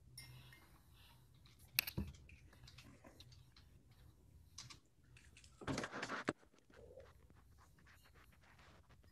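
Faint scattered clicks and small handling noises over a low steady hum, with one sharp click about two seconds in and a half-second rustle about six seconds in.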